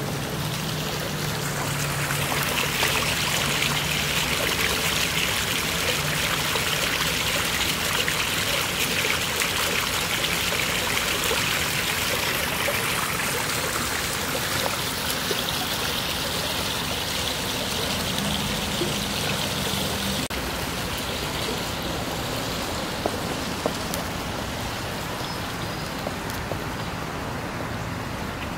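Steady splashing and trickling of water running into a small rock-edged garden pond. It swells a couple of seconds in and eases after about twenty seconds.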